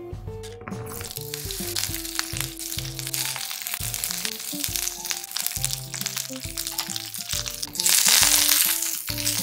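Green pepper pieces sizzling in sesame oil in a nonstick frying pan, the sizzle swelling loudest about eight seconds in as the peppers are stir-fried. Soft background music plays underneath.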